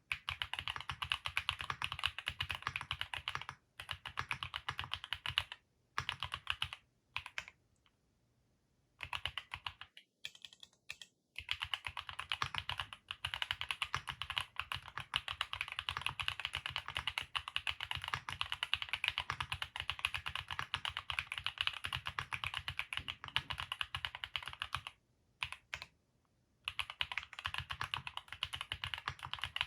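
Typing on a Vertex Arc60 custom mechanical keyboard with Haimu Sea Salt linear switches: fast, continuous runs of key clacks. The runs break off in several short pauses during the first third and once more near the end.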